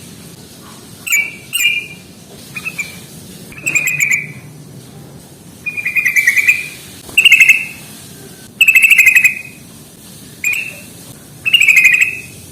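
Sooty-headed bulbul (trucukan) calling in about nine short, rapid chattering phrases with brief pauses between them.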